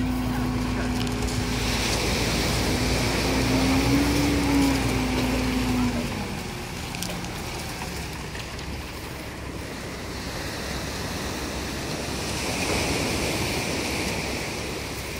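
Wheel loader's diesel engine running close by, rising slightly in pitch about four seconds in, then falling away about six seconds in. Surf and wind on the microphone remain.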